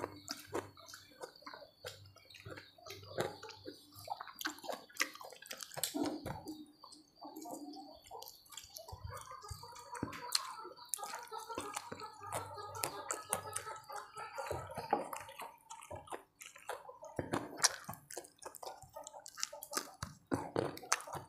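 Close-miked eating: wet chewing and mouth noises, with many small sharp clicks scattered through.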